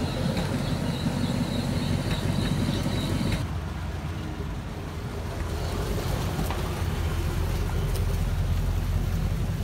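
Early Ford flathead V8 cars running at low speed, a steady deep engine rumble as the sedans roll slowly over a dirt street. The sound changes about three and a half seconds in, after which a second car's engine runs close by.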